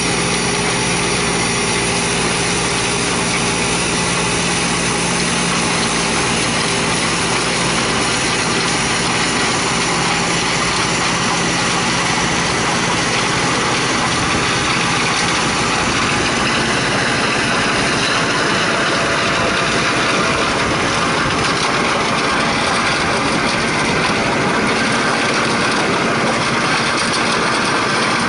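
Tractor engine running under load while driving a rear-mounted stone crusher through stony ground, a loud, steady mechanical din.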